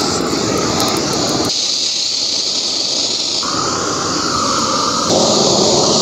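Large gas-fed roofer's blowtorch running at full flame with a loud, steady rushing hiss as it scorches the inside of a wooden beehive box. Its tone shifts abruptly a few times.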